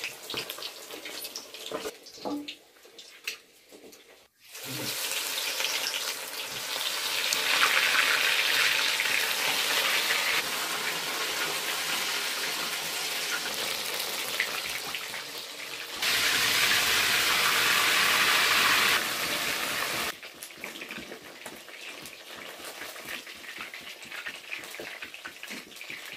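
Batter-coated chicken pieces deep-frying in hot oil in a kadai, a loud steady sizzle. It starts abruptly after a few seconds of quieter clicks and falls to a softer crackle with scattered clicks near the end.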